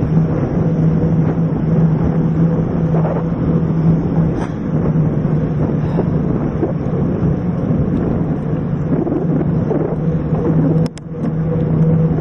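Wind buffeting and trail rumble picked up by a handlebar-mounted action camera on a moving mountain bike, with a steady low hum underneath. About eleven seconds in, the noise drops briefly and there are a couple of sharp clicks.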